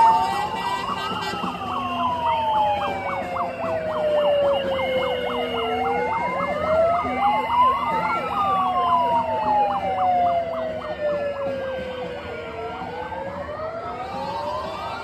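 Sirens: one wails in long cycles, its pitch rising over about a second and then falling slowly over several seconds, three times, while another yelps rapidly up and down over it through the first half. They grow a little quieter near the end.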